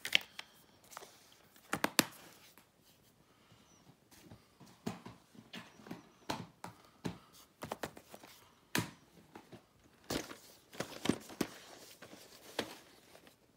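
Plastic Blu-ray and DVD cases being handled: a string of short plastic clicks and clacks about every second, as a case is shut and cases knock together while being stacked, with light rustling between.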